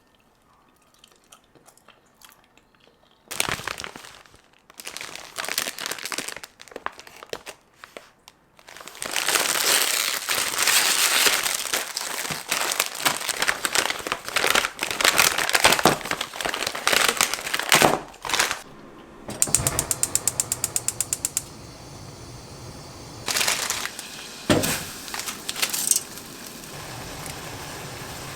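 Kitchen handling noises: plastic packaging crinkling and rustling, densest through the middle. Near the end comes a rapid, even run of clicks lasting about two seconds.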